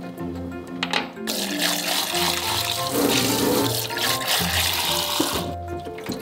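Kitchen tap running into a cup and a stainless steel sink. The flow starts about a second in and stops shortly before the end, over background music.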